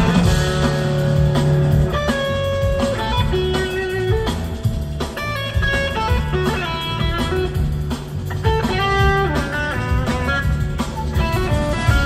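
A live blues-rock band playing an instrumental passage: an electric guitar lead over keyboards, bass guitar and drums.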